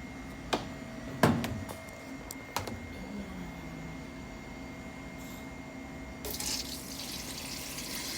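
A few sharp clicks and knocks, the loudest about a second in, then about six seconds in water starts running steadily from a tap as the washing machine tub is filled.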